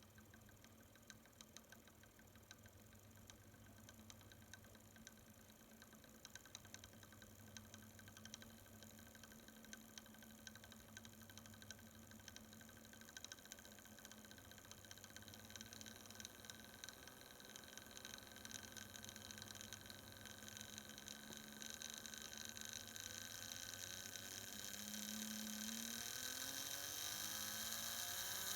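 Fleischmann BR 140 model locomotive's electric motor running: a faint, steady hum with light ticking that slowly grows louder, and a whine that rises in pitch near the end. This is the strange running noise that the owner thinks comes from the motor.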